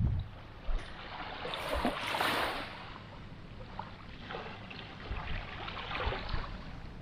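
Small waves lapping on a sandy beach, the wash hissing up the sand about two seconds in and again, more softly, later on. A brief buffet of wind on the microphone at the very start.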